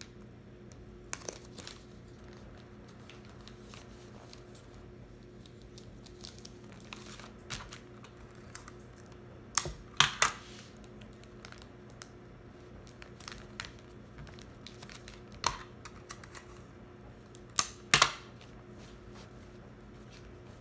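Folded origami paper and sticky tape being handled: scattered sharp crinkles and crackles of paper and tape, the loudest coming in pairs about halfway through and near the end, over a faint steady low hum.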